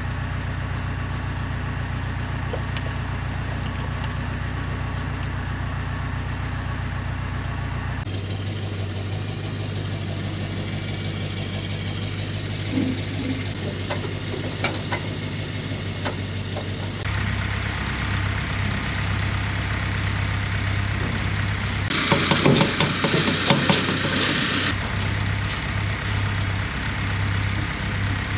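Pickup truck engine idling steadily, with a louder stretch of rattling noise for about three seconds near the end.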